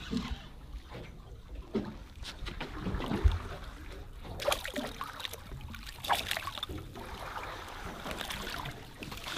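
Sea water sloshing and splashing against a small boat's hull as a hooked snapper is brought to the surface and a landing net is dipped in, with scattered knocks and one heavy low thump about three seconds in.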